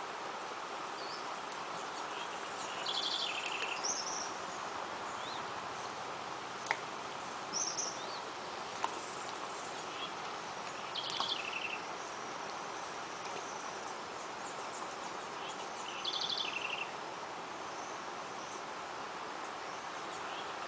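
A bird repeats a short, quick, trilled phrase about every four to five seconds, with a few higher whistled notes between, over a steady outdoor hiss that may be insects. There is a single sharp click about seven seconds in.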